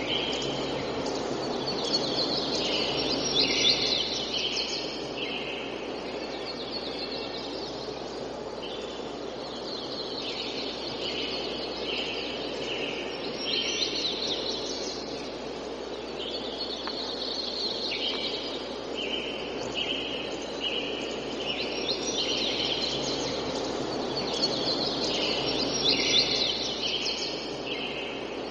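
Tropical forest dawn chorus: birds calling, with runs of several short repeated notes that come back every several seconds, over a steady background hiss of the forest.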